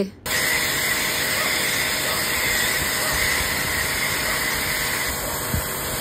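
Electric high-pressure washer spraying water from its gun, a steady hiss that starts about a quarter-second in.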